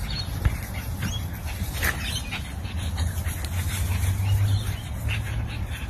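A pug making short, irregular sounds while it plays with a hen, over a steady low hum.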